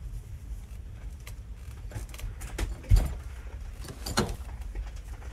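A steady low hum with scattered small clicks and rustles of movement, a dull thump about three seconds in, and a brief swishing scrape about four seconds in.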